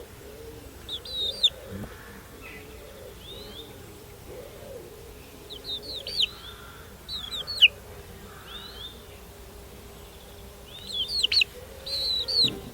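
Birds chirping in clusters of short, sharp chirps: a group about a second in, more around six to eight seconds, and another near the end.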